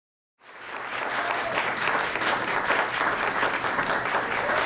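Audience applauding, a dense steady patter of many hands clapping that fades in just after the start.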